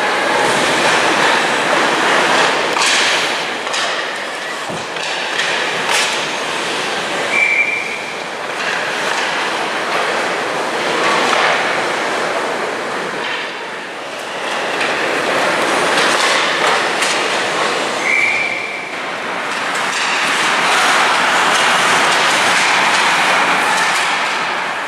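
Ice hockey game noise on the ice: skate blades scraping and carving the ice in a steady hiss that swells and fades, with sharp clacks of sticks and puck scattered through it and two short high squeaks.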